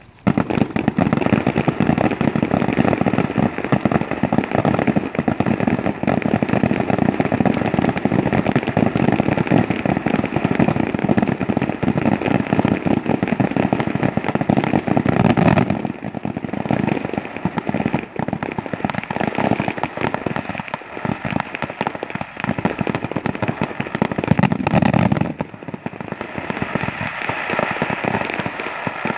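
Fireworks going off in a dense, continuous rapid-fire crackle that starts abruptly. It eases off a little about halfway through and swells again shortly before the end.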